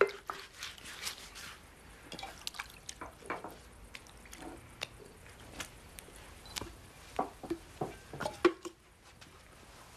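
Water dripping and splashing in a clay basin as feet are washed by hand: a scattered series of small, irregular drips and splashes, the loudest about eight and a half seconds in.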